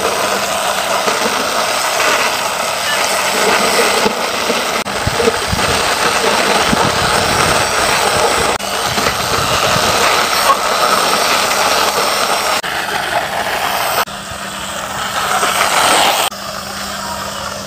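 Plastic wheels of a toy ice cream van rolling along a rough painted concrete ledge as it is pushed by hand: a steady gritty rolling noise that drops away near the end.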